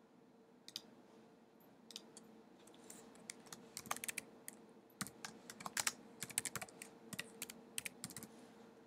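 Faint computer keyboard typing: a few scattered keystrokes at first, then quick runs of key clicks through the middle that stop shortly before the end.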